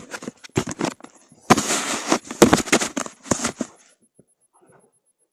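Crackling, rustling handling noise with a run of sharp clicks, loudest in the middle and stopping about four seconds in.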